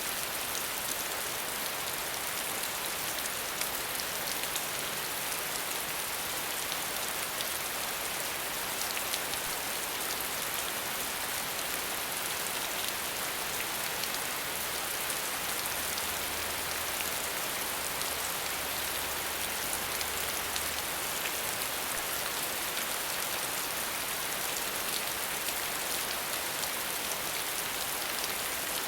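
Waterfall: a steady, unbroken hiss of falling water with a fine patter of splashing drops.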